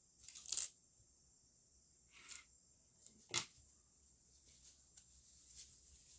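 Brief rustling of paper and plant material being handled while a herbarium specimen is pressed: three short rustles, the last a sharper crackle about three and a half seconds in, with faint ticks between.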